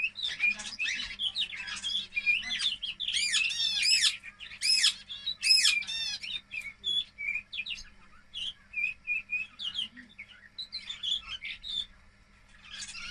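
Two-month-old canary singing its early juvenile song: quick rising and falling chirps and short trills, densest in the first half and thinning out toward the end.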